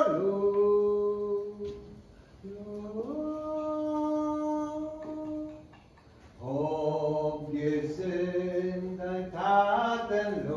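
A man singing unaccompanied in a slow, chant-like way, in three phrases of long held notes. The pitch slides from one note to the next, with short breaths between the phrases.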